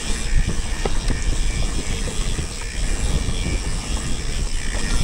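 Wind rumbling steadily on the microphone of a mountain bike rider moving along a trail.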